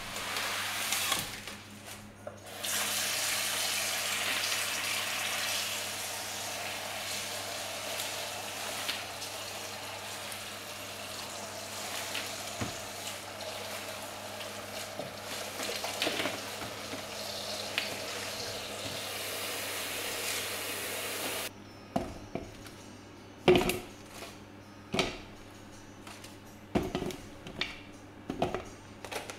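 Tap water running into a kitchen sink while salad greens are rinsed, a steady hiss that cuts off suddenly about two-thirds of the way through. After it comes a string of sharp knocks as sweet potatoes are handled in a bowl.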